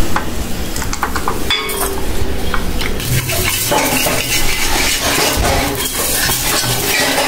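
Metal ladle and spatula scraping and clinking against pans: chutney being ladled out of a kadai into a steel bowl, then a spatula loosening an appam around its pan, busier and louder from about three seconds in.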